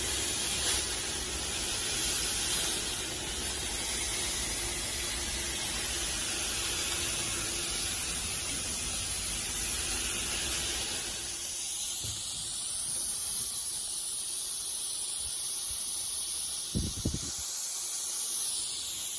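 Electric disinfection fog machine (heated atomizing sterilizer) jetting out fog with a steady hiss. Its lower part thins about two-thirds of the way through, and there is a brief low knock near the end.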